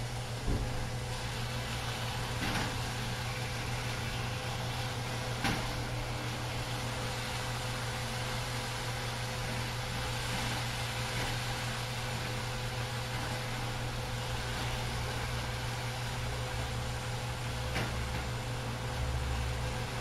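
Diced chicken sizzling in a frying pan over a steady low hum, with a few light knocks as it is stirred.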